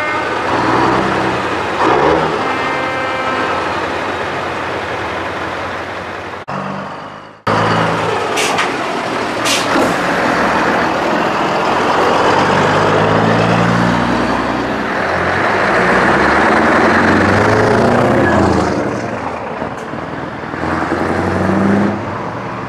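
Heavy diesel trucks pulling away and driving past one after another, engines revving up and down, with a couple of short air hisses from the brakes and one truck passing loudly close by.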